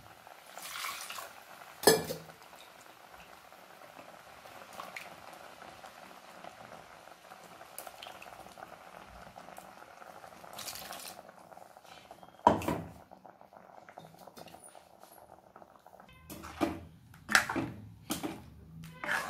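Steel spoon clinking and scraping against a nonstick kadai while a thick coconut-paste curry of raw banana (erissery) simmers with a soft, steady bubbling. There is a sharp clink about two seconds in and another around twelve seconds, then a run of stirring knocks near the end.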